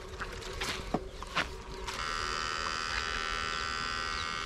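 Battery-powered electrofishing shocker buzzing with a high, many-toned electrical whine that switches on about two seconds in, after a few sharp clicks and knocks, the loudest two around the middle.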